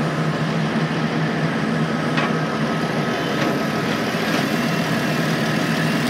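Motor vehicle engine idling steadily, with a few faint clicks.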